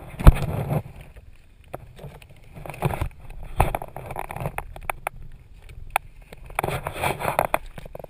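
Crawling over plastic vapour-barrier sheeting: irregular rustling and scraping, with a sharp knock just after the start and a smaller one about three and a half seconds in.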